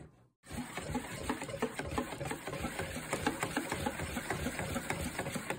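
Wire whisk stirring a thin rice-flour and tapioca-starch batter in a bowl: a quick, steady run of clicks and taps as the wires knock against the bowl, starting just after a brief silence.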